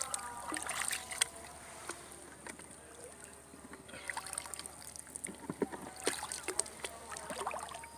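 Light water sloshing and splashing in shallow water, coming in short irregular bursts with faint clicks, busiest about six and seven and a half seconds in.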